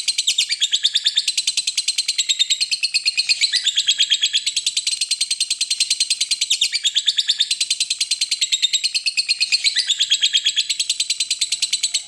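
Lovebird giving its long 'ngekek' chatter: an unbroken, fast string of shrill, high notes, several a second, in phrases of about two seconds. It stops abruptly right at the end.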